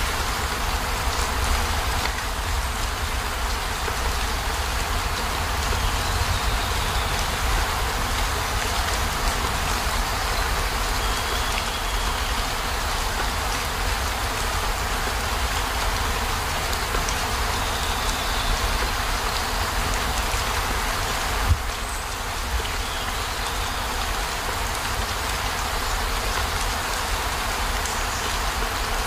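Steady rain falling on a camper van's roof and windows, with a low rumble underneath. One sharp tap comes about three-quarters of the way through.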